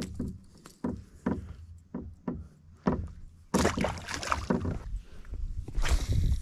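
A freshly caught ladyfish thrashing in hand, knocking against the plastic kayak hull about twice a second. About three and a half seconds in comes a short rush of water and handling noise.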